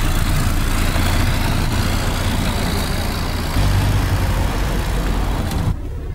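Engine of a WWII-era military jeep idling with a steady low rumble, heard close up. It swells a little past the middle and stops suddenly near the end.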